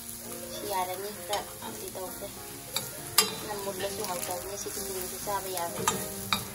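Julienned carrots sizzling as they are stir-fried in oil in a cast-iron pan. A metal spoon scrapes and clicks against the pan a few times as they are turned.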